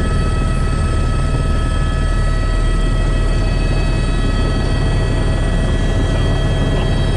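Helicopter running in steady flight: a constant low rotor and engine drone with several steady high whines over it.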